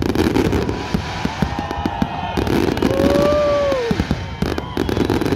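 Fireworks crackling and popping in rapid, dense succession. About halfway through, a held tone lasting about a second rises slightly and then falls away over the crackle.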